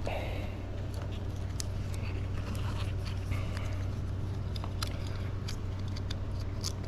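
Small clicks and rubbing of hands working a rubber fuel hose onto the outlet of an in-tank fuel pump assembly, scattered irregularly over a steady low hum.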